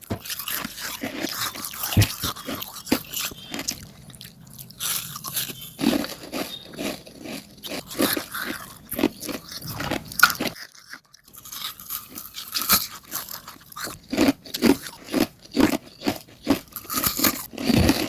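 Hard ice being bitten and chewed, a dense run of crisp, irregular crunches with a short pause a little past the middle.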